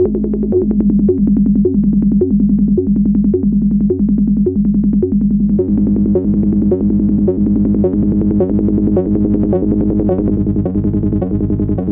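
Behringer MS-1 analog synthesizer playing a repeating bass pattern, just under two notes a second, over a steady low tone. About halfway through, the tone turns brighter and buzzier as frequency modulation of the filter is turned up.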